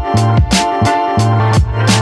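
Background music with a steady beat, about two drum hits a second, over a deep bass line.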